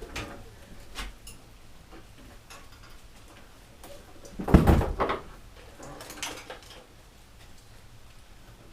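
Knocks and clatter of parts and hand tools being handled while working on a lawnmower go-kart. There are a few scattered clicks, with the loudest burst of knocks about halfway through.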